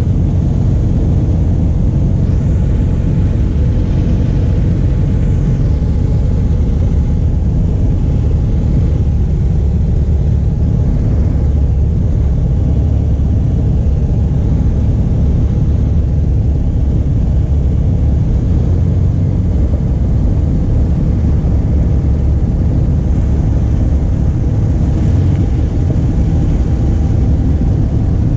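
Pitts S-1S biplane's engine and propeller running steadily, heard from inside the cockpit, with a deep low-pitched drone and no change in level.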